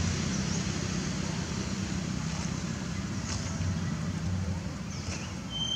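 Steady outdoor background noise with a low rumble, with a few faint short chirps and a thin, high steady tone near the end.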